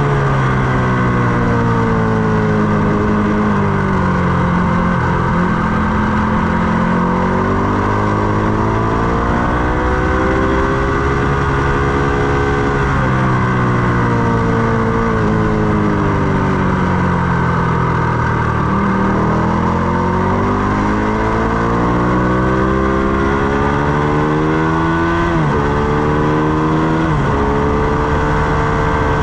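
Ducati Panigale 899's L-twin engine heard onboard at track speed, revving up and down through the gears. Revs fall over the first few seconds, climb and drop at a gear change about halfway, fall off again, then climb through two quick upshifts near the end.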